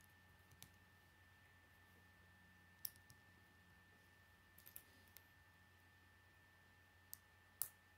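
Small plastic Lego bricks being pressed and snapped together by hand: scattered sharp clicks, about nine in all, the loudest about three seconds in and near the end, over a faint steady hum with a thin high tone.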